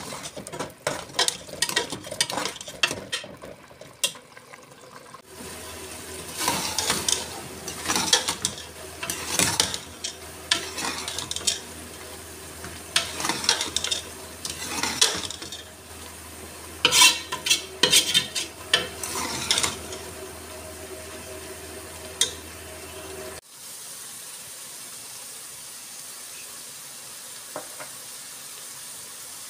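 A steel ladle stirring chickpeas in an aluminium pot, scraping and clinking against the metal in irregular bunches over a steady hiss from the cooking pot. The clinking thins out near the end.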